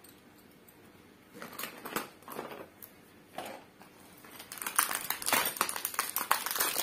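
Bangles and a clear plastic bangle box being handled: a few soft knocks and scrapes, then from about four and a half seconds in a dense run of small clicks, rattles and crinkles as the plastic box is worked with the hands.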